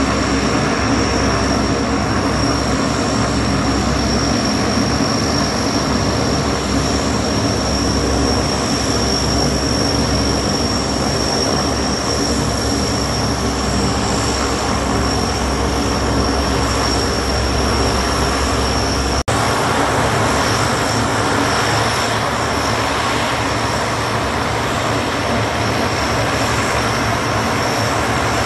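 A Lockheed C-130 Hercules's four Allison T56 turboprop engines and propellers running as it taxis, a loud steady drone with a constant high whine over it. A momentary dropout comes about two-thirds of the way through, after which the low rumble is weaker.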